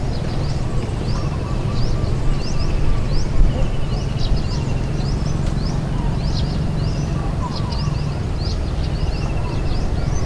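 Birds calling from the wooded lakeshore: many short high chirps, and a softer trill that repeats every second or two. A steady low rumble runs under them.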